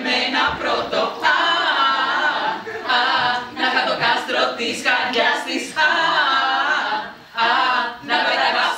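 A stage ensemble of men and women singing together in phrases, with short breaths between them.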